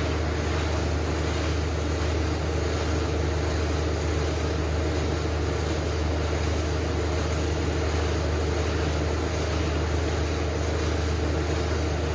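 A machine running steadily: an unchanging low hum with an even hiss over it, with no change in speed or level.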